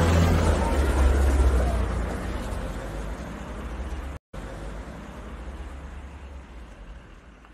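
Bus engine rumble with road noise, fading out steadily, with a brief dropout about four seconds in.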